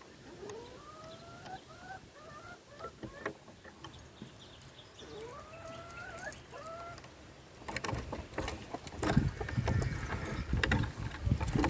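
Chickens calling in two runs of short rising notes. From about eight seconds in, loud low rustling and bumping takes over.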